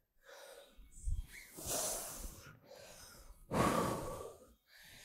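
A woman breathing: a few soft breaths, the two longest about a second and a half and three and a half seconds in.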